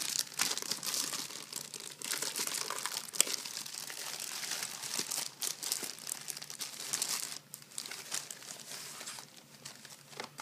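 Clear plastic packaging being crinkled and pulled open by hand, a continuous crackling rustle with one sharp click about three seconds in, growing quieter near the end.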